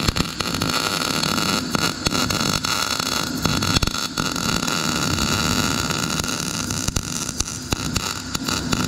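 CO2 MIG welder's arc burning steadily as it lays a bead on steel square tube: a continuous crackling hiss with many sharp pops. The current is set somewhat high for the wire speed.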